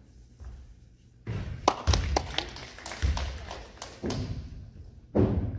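A basketball bounced several times on a hardwood gym floor: dull thuds spaced roughly a second apart after a quiet first second, with sharp taps and clicks among them.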